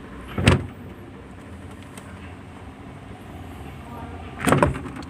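LG refrigerator door being opened and shut: a sharp thump about half a second in, then a longer cluster of several knocks about four and a half seconds in, over a steady low background hum.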